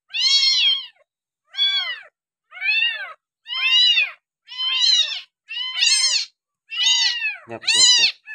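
Young kitten meowing over and over, about eight high calls, roughly one a second, each rising then falling in pitch.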